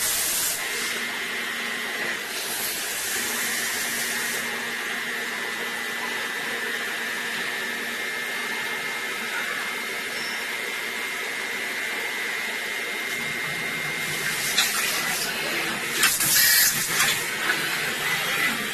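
DMG Mori vertical machining centre running a small-part milling job: a steady hiss with a high, steady spindle whine, and louder noisy rushes near the start and again about three quarters of the way through, with a few sharp spikes near the end.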